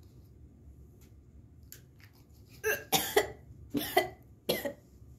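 A boy coughing three times, with a grimace, after sniffing red fox urine lure; the first half is quiet apart from faint handling of the bottle.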